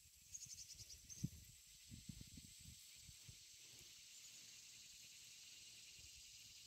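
Faint, steady high buzzing of insects, with a short pulsing trill about half a second in. A few soft low bumps come in the first three seconds, then only the insect buzz remains.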